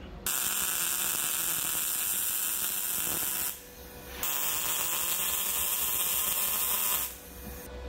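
MIG welder arc running on steel tube in two steady, hissing beads of about three seconds each, with a short break between them. The welder afterwards puts the poor weld down to the shielding gas having been left off.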